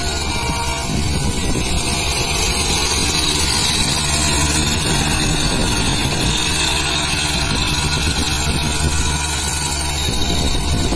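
Small Sonalika tractor's diesel engine running steadily under load as the tractor drives over a spread layer of rice stalks, threshing the paddy under its tyres.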